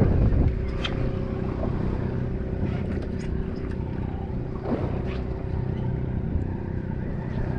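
Boat engine running steadily with a low hum, with a few light clicks about a second and three seconds in.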